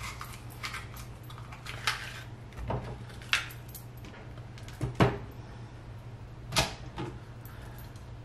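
A paring knife cutting and coring crisp raw green bell peppers: scattered sharp snaps and clicks as the firm flesh and stems crack and the knife taps the cutting board, over a steady low hum.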